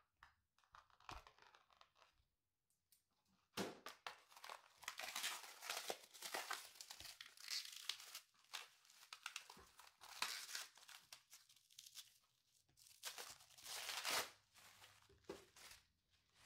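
Clear plastic packing wrap crinkling and tearing as it is cut and pulled off a small ceramic bonsai pot, in irregular bursts. Faint ticks and rustles at first, then louder, busier crinkling from about three and a half seconds in.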